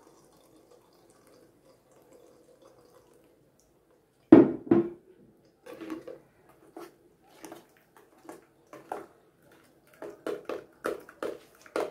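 Thick beetroot-and-watermelon juice pouring faintly from a glass pitcher into a stainless steel strainer, then two loud knocks about four seconds in. After that a spoon scrapes and taps against the metal strainer mesh in irregular strokes as the pulp is pressed.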